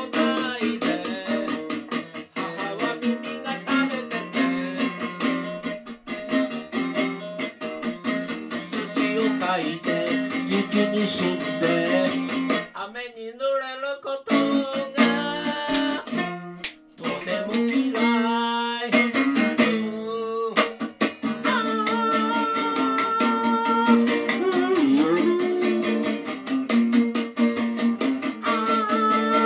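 Live solo electric guitar and male vocals: fast strummed chords for about the first twelve seconds, then slower, long held notes, some of them wavering.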